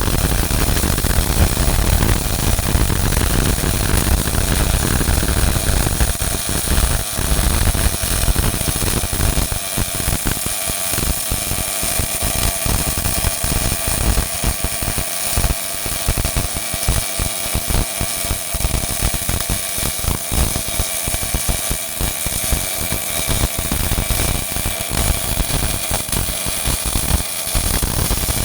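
MIG welding arc crackling and hissing without a break through one long weld, with a steady tone underneath.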